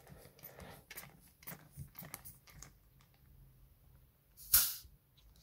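Rubber pump bulb on a vintage Reebok Pump air bladder being squeezed by thumb: faint plastic handling clicks, then about four and a half seconds in a single short, loud rush of air forced through the bulb's valve.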